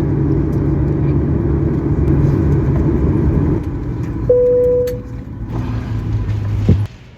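Steady low vehicle rumble that eases off about halfway through. About a second later comes a single short bright tone like a chime, fading quickly, and near the end a knock, after which the sound drops abruptly.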